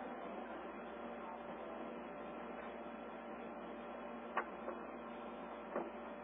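Steady hiss with a faint hum, the noise of a received amateur-television radio audio channel, with a couple of faint clicks about four and a half and six seconds in.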